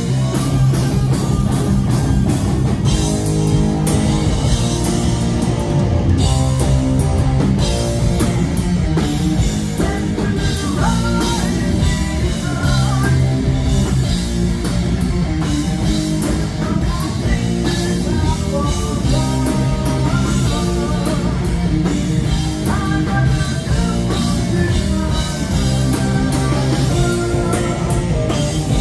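Heavy metal band playing live: distorted electric guitars, bass and a drum kit with cymbals, with a melodic guitar line running over the riff.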